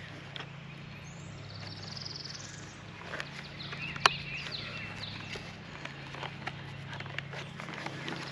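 Birds chirping and calling outdoors, with a rising high call near the start, over a steady low hum. Scattered small clicks of handling, and one sharp click about four seconds in.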